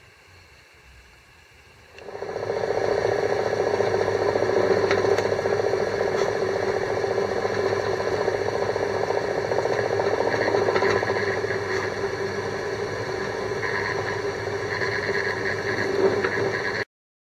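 Benchtop drill press running with a steady motor hum as it drills stitch holes through a leather sheath blank; it starts about two seconds in and stops abruptly near the end.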